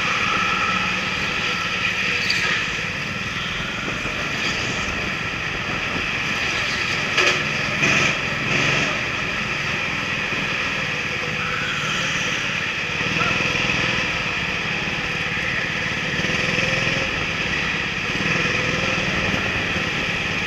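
Kart engine running under way, heard from a helmet-mounted camera, its pitch shifting a little with the throttle. A few short knocks about seven to nine seconds in.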